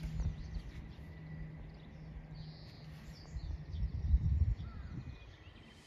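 Outdoor countryside ambience: wind gusting on the microphone with a low rumble, strongest about four seconds in, and faint bird calls in the background.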